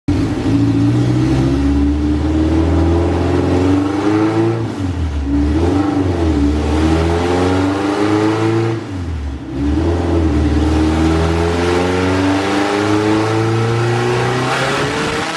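Honda B20 four-cylinder engine with Crower 404 cams, running on a 100-shot of nitrous, making a full-throttle pull on a chassis dyno. The revs climb in several stretches with brief dips, then the throttle closes near the end.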